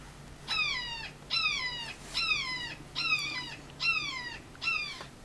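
Recorded red-shouldered hawk call played back: six screams in a steady series, each falling in pitch, about one every 0.85 s.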